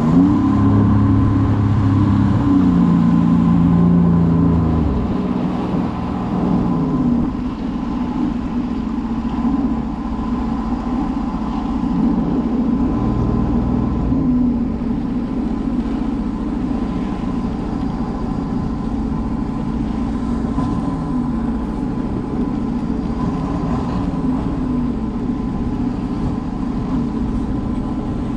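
Sea-Doo personal watercraft engine running at speed with water rushing past. About five seconds in it eases off in steps, then runs quietly at low speed as the craft coasts in over shallow water.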